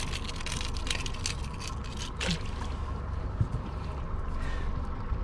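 Water splashing and trickling at a boat's side over a steady low engine hum; the splashing is busiest in the first couple of seconds, then settles.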